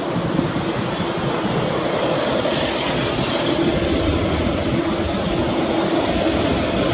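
Boeing 787 airliner's turbofan engines running at taxi power as the jet rolls slowly past, a steady jet rumble with a low hum underneath that grows slightly louder about two seconds in.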